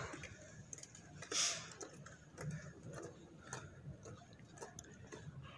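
Faint, irregular clicks and taps, with a brief hiss about a second and a half in.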